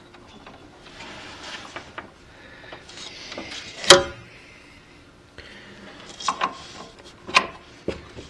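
Metal tool clinks and knocks as a pulley remover is fitted and centered on a power steering pump pulley, with handling and scraping between them: one sharp clank about four seconds in is the loudest, followed by a few lighter clicks.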